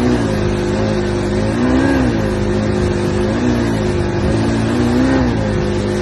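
Two-stroke Johnson outboard motor running, its note rising briefly four times, about every one and a half seconds, instead of holding steady. The uneven running is what the owner asks about: a bog or a misfire.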